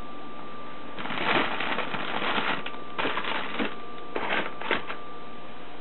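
Rustling and crinkling among packages on a kitchen cabinet shelf, in three spells of a second or so each.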